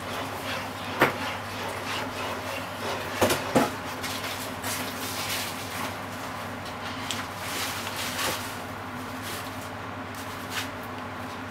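Silicone-tipped kitchen tongs stirring creamy carbonara sauce in a frying pan, with a few sharp clacks of the tongs against the pan, about a second in and twice around three and a half seconds in, over a steady hiss and low hum.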